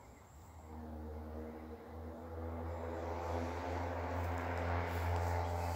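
Low, steady hum of a distant engine, coming in after a moment and slowly growing louder.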